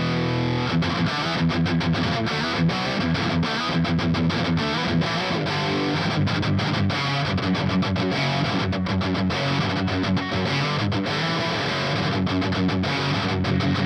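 Distorted electric guitar riffing through a modified Marshall JCM 900 SL-X 50-watt tube head with EL34 power tubes, played into a Mesa Rectifier 4x12 cabinet. A choppy, aggressive high-gain riff with many short breaks between chords.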